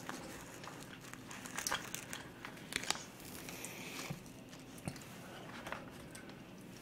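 Quiet, scattered clicks and crinkles of chopsticks picking food out of plastic takeout containers, with plastic wrapping rustling.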